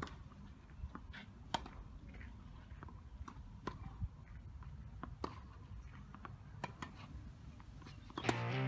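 Tennis balls being struck on outdoor clay courts: sharp, single pops at irregular intervals, about one every second or two, over a faint outdoor background hum. Guitar music comes in just before the end.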